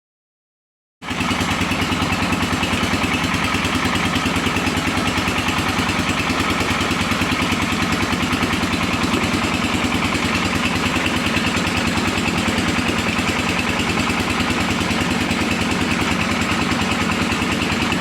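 Brick press machine running steadily, its motor giving a fast, even pulsing with a constant low hum. It starts about a second in.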